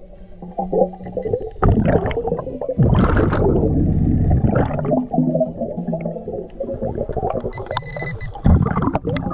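Underwater sound of a diver breathing through a battery-powered hookah regulator (BLU3 Nemo): exhaled bubbles rumble and gurgle in irregular bursts, with several louder surges, over a water hiss.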